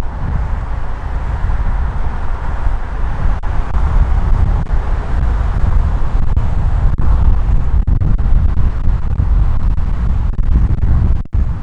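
Steady road and wind noise from a car driving at speed, with a heavy low rumble. It drops out briefly near the end.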